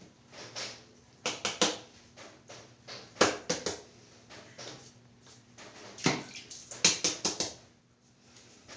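Irregular knocks, clicks and short scrapes of hand work, most likely tools or material being handled against hard surfaces in a tiled shower enclosure, over a faint steady hum. The loudest knocks come about three seconds in and again around six to seven seconds in.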